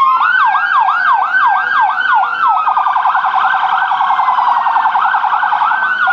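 Electronic emergency siren on a fire department rescue truck. It switches from a slow wail into a yelp of about four sweeps a second, then to a much faster warble for the second half, and swings back into the slow wail right at the end.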